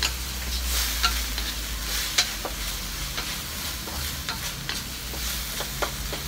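Chicken pieces sizzling in hot oil in a wok while a wooden spatula stirs them, its scrapes and taps against the pan coming irregularly, roughly every half second to second, over a steady frying hiss.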